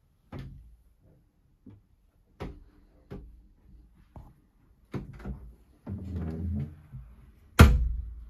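Irregular knocks and thumps of someone moving about inside a yacht's wooden cabin, with a longer scraping sound about six seconds in and the loudest thud near the end.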